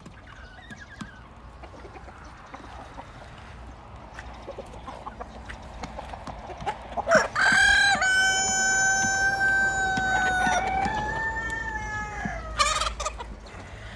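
Rooster crowing once, a single drawn-out crow of about five seconds beginning about halfway through. It opens with short notes, holds one long steady note and changes pitch before it breaks off.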